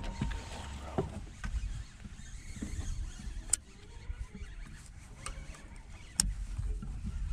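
Low wind rumble on the microphone around a boat, with a faint electric whine that stops about a second in and two sharp clicks, the second about six seconds in.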